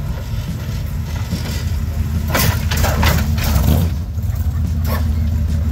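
A car engine running with a steady low rumble, which grows louder about two seconds in.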